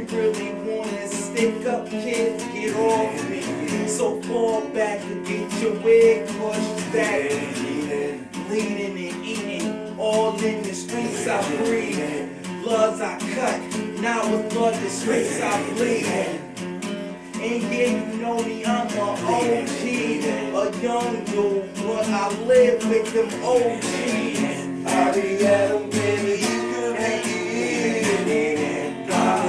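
Acoustic guitar strummed steadily, its chords ringing on without a break.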